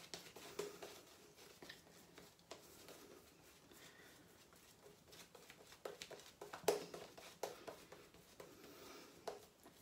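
Shaving brush working lather onto a stubbled face: quiet, irregular wet clicks and brushing rustles.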